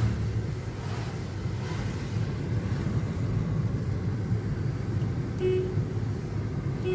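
Steady low rumble of a road vehicle running, with a short horn toot about five and a half seconds in.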